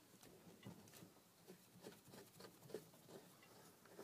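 Near silence, with faint, scattered light clicks and taps.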